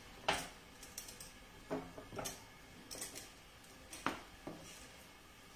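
Light clicks and taps of a cooking pot and utensil as dry spaghetti is put into the pot and pushed down, a handful of short, scattered knocks.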